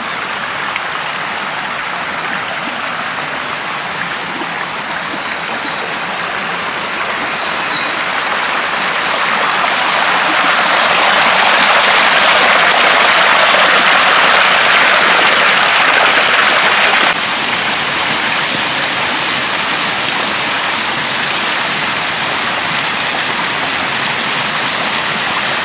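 Shallow stream rushing and splashing over and between boulders, a steady hiss of running water. It grows louder toward the middle and drops abruptly about two-thirds of the way through.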